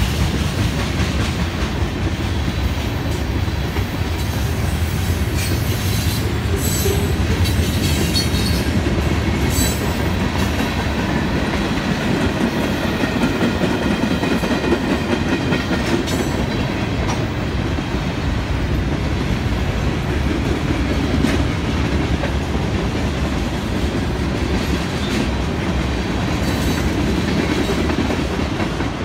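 Canadian Pacific freight cars rolling past at a grade crossing: a steady rumble and clickety-clack of steel wheels over the rail joints, with a few brief sharper high sounds.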